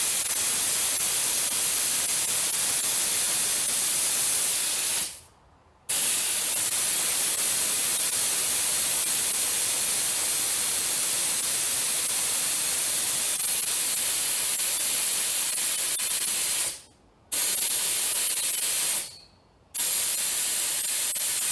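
Air hissing steadily out of a 4WD tyre through a manual (analogue) tyre deflator held open, letting the tyre down toward 25 PSI. The hiss stops abruptly three times, each for about a second or less, as the deflator's valve is pushed back in to read the pressure gauge.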